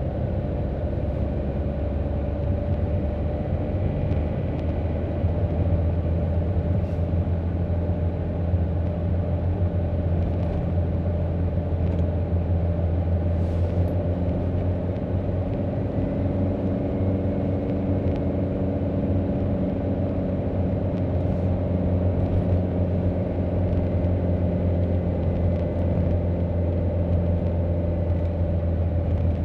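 Steady drone of a car's engine and road noise heard from inside the cabin while driving, a deep hum with a faint steady tone above it.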